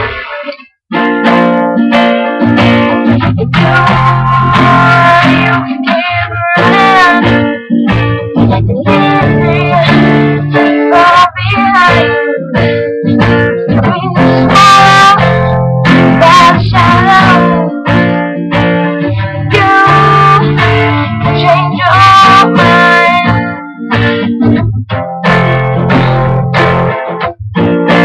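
A woman singing with her own acoustic guitar accompaniment, the guitar playing throughout and the voice coming in over it in several phrases. The guitar breaks off for a moment just under a second in.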